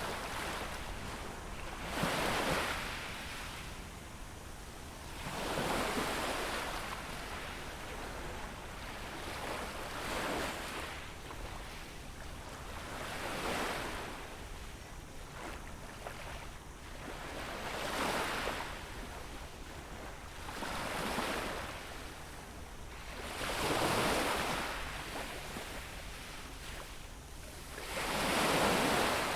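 Sea waves breaking and washing up on a beach shore, each wash swelling and fading, one every three to four seconds; the loudest come about two seconds in and near the end.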